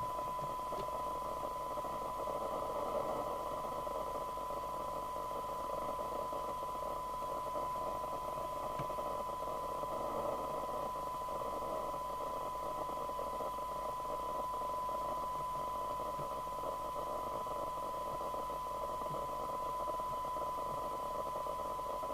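Steady 1 kHz test tone with a hiss of noise behind it, from the receive audio of a Maxcom Apollo 16E FM CB radio picking up a weak signal-generator carrier during IF alignment for a SINAD sensitivity test.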